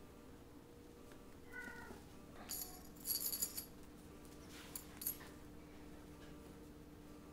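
Kittens at play: a short kitten mew about one and a half seconds in, then a toy bell jingling in quick shakes, loudest around three seconds in and again briefly near five seconds.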